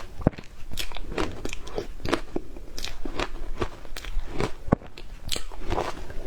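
Frozen matcha ice being bitten and chewed: a quick, irregular run of sharp crunches, about three a second.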